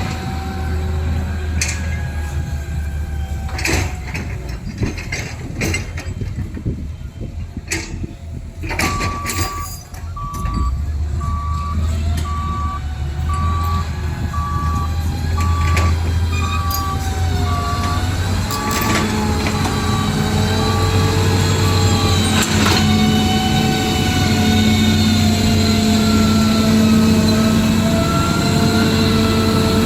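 Reversing beeper sounding a steady beep about once a second, starting about nine seconds in and stopping near twenty-two seconds, over a steady engine-like drone from a vehicle or machine, with a few clicks early on.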